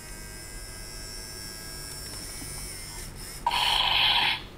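Faint steady electronic hum, then near the end a loud, steady buzz lasting under a second from a battery-powered talking Mayor Kosmoceratops dinosaur toy.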